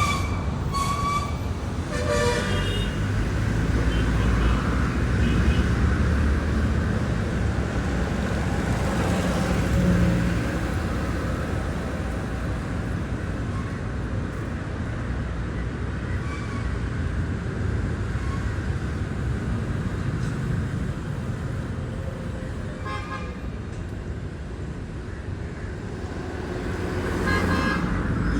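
Road traffic running steadily, with vehicle horns tooting briefly near the start and again near the end.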